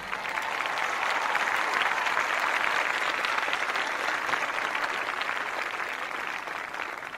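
Concert audience applauding at the end of a tango performance. The clapping builds over the first couple of seconds, then slowly fades.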